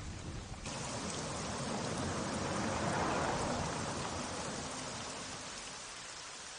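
Rain: a steady hiss that grows louder just under a second in, swells to its loudest around the middle, then slowly fades.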